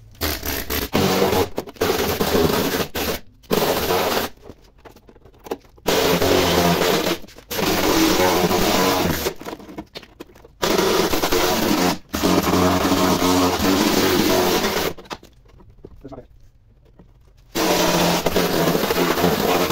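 Handheld power tool worked against a rusted-through steel wheel arch, run in repeated bursts of one to three seconds with short pauses.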